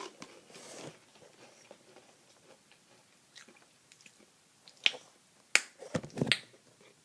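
Someone eating close to the microphone: faint chewing, then a few sharp, crisp bites or crunches about five to six seconds in.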